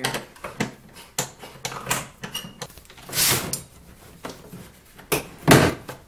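Plastic dash panel of a snowmobile being worked loose by hand: a run of clicks and knocks with a rustling scrape, then a loud plastic clunk about five and a half seconds in as the dash pops off.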